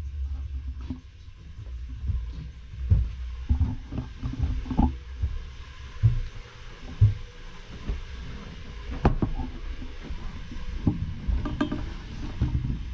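Handling noise from a camera being moved around: irregular low thuds and knocks with rubbing, and one sharper click about nine seconds in.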